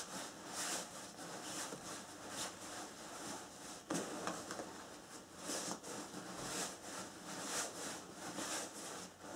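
Nylon hammock fabric rustling and swishing as it is stuffed by the handful into its attached stuff sack, in repeated soft swishes about once a second, with one light knock about four seconds in.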